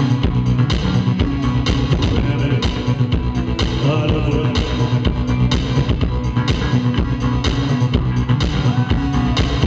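Live band music: an electronic rock song with a steady driving drum beat, bass and guitar, with some singing.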